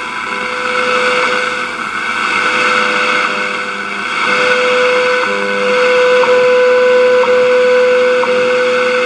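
WWV time signal heard on 10 MHz shortwave through a 1937 Sears Silvertone tube radio: a steady tone with a short tick every second, over static hiss. The tone is weak for the first few seconds, then comes in strong about four seconds in, and the Hawaii station WWVH is mixed in underneath.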